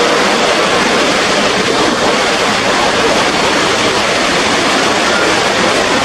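Niagara's Horseshoe Falls: a loud, steady, unbroken rush of falling water.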